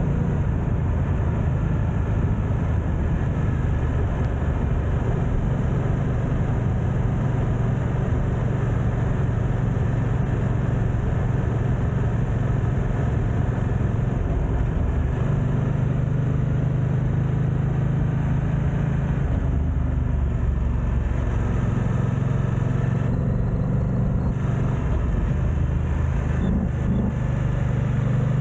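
BMW F900XR's parallel-twin engine running under way, a deep steady note whose pitch steps up and down a few times with throttle and gear changes, heard through heavy wind noise on an action camera's built-in microphones.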